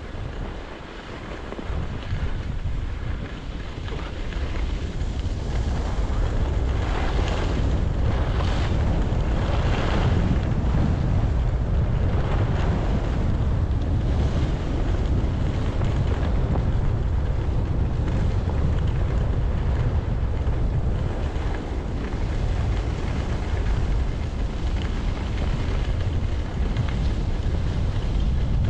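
Wind buffeting the microphone as a cross-country skier glides along a groomed snowy trail, a steady low rumble with the hiss of skis on snow over it. It grows louder a few seconds in and then holds steady.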